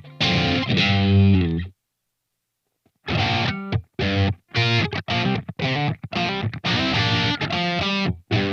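SLX Hawk Classic 22 HSS electric guitar, with Alnico V HSS pickups, played with distortion. A chord phrase cuts off abruptly under two seconds in; after more than a second of silence, short choppy chords follow with brief gaps between them.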